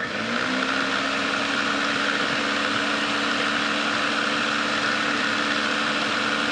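Countertop blender motor starting up, its pitch rising quickly as it comes up to speed, then running steadily while blending a thick, creamy sour-cream and mayonnaise sauce.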